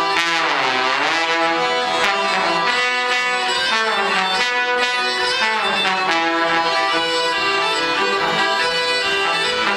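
Live folk music on trombone, accordion and bagpipe, played together; about half a second in the trombone slides down in pitch and back up again.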